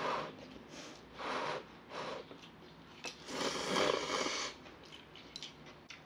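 Glass noodles (dangmyeon) being slurped from a bowl of kimchi stew: four hissing slurps, the loudest and longest lasting over a second, from about three seconds in.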